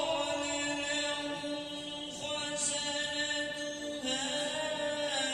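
Quran recitation in tarteel style by one male reciter. The voice holds one long melodic note, then begins a new phrase about four seconds in.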